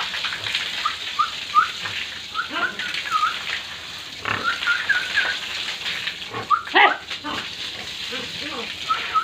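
Pigs calling: a run of short, high squeaks with lower grunts underneath, and one louder squeal about seven seconds in.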